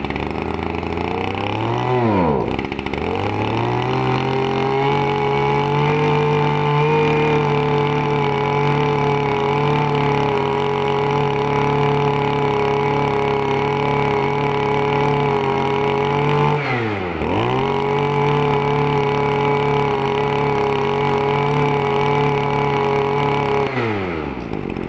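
Echo Kioritz 265 brush cutter's small two-stroke engine running on test at high revs, throttle held open. Its pitch sweeps down and back up about two seconds in and again around seventeen seconds, then drops off near the end.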